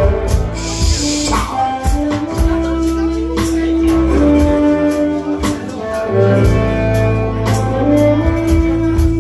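Live band playing: electric guitar, bass guitar and drums with a tambourine shaken on the beat, harmonica and a man's singing voice, with held notes over a steady beat.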